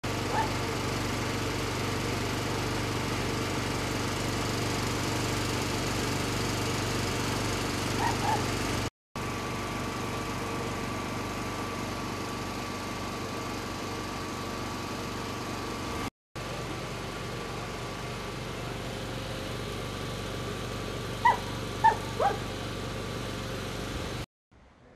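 A steady engine hum, cut off briefly twice. A dog barks twice about eight seconds in and three times a little after twenty seconds.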